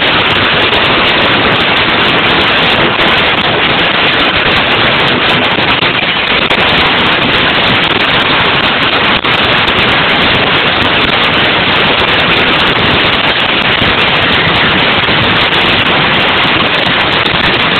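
Audience applauding loudly and steadily, a dense clatter of clapping.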